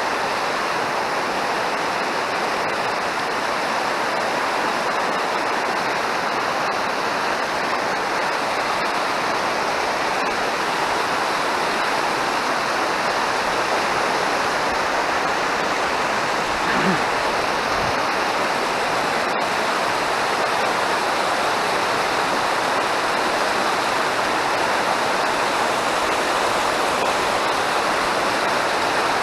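Mountain stream rushing, a steady, full water noise with no let-up.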